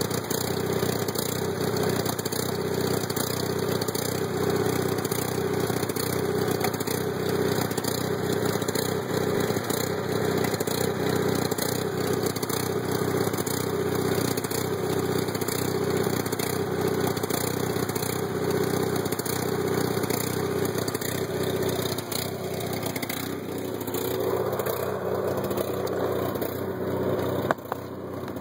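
Kohler RV generator set engine running steadily at constant speed, which the owner is unsure about and thinks may need a carburettor tune-up. A sharp click near the end.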